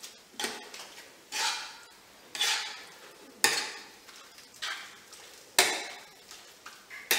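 Metal tongs tossing spaghetti and bolognese sauce in a frying pan, clattering and scraping against the pan about once a second.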